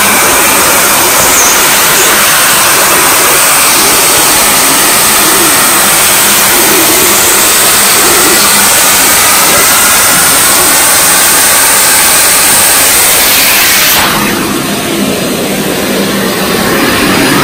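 Sauber vacuum cleaner running steadily as its nozzle is drawn over fabric curtains, a loud rushing whine that wavers slightly in pitch. About fourteen seconds in, the sound dips and turns duller as the high hiss drops away.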